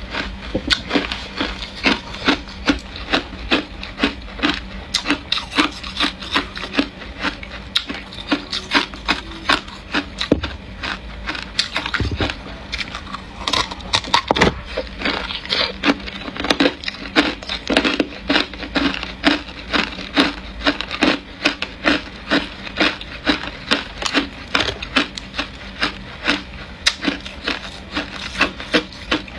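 Hard ice being bitten and chewed: a steady run of sharp, crisp crunches, about two a second.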